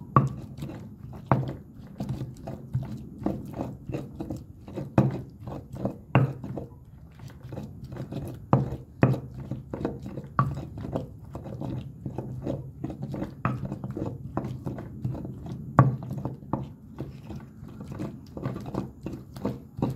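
Stone pestle (tejolote) pounding and grinding green chiles in a volcanic-stone molcajete: repeated, irregular stone-on-stone knocks mixed with wet crushing of the chiles, several strokes a second with some harder blows. This is the mashing of the chiles into a chile-only salsa.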